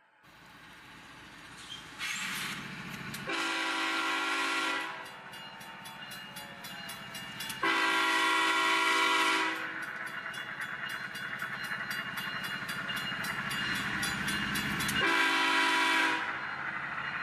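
Diesel locomotive horn sounding three blasts, the first two long and the last shorter, over the steady rumble of a diesel engine, with rapid clicking between the blasts.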